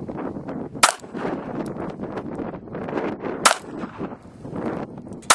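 Taurus PT738 .380 ACP pistol firing handloaded 100-grain full metal jacket rounds: a shot about a second in, another about two and a half seconds later, and a third at the very end. The reloads fire and cycle without a hitch.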